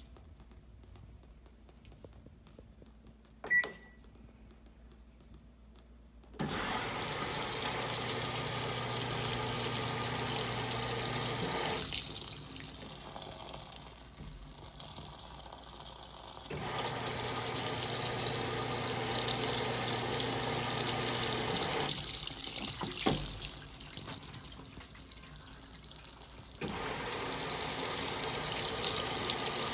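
A single short electronic beep from the Teco W1068XS washing machine's control panel, then a few seconds later water starts rushing into the tub through the inlet valve with a low steady hum. The flow eases off twice for a few seconds and comes back.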